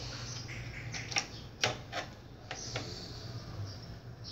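Several short sharp clicks and taps from handling the receiver's open metal chassis and parts, between about one and three seconds in, over a low steady hum.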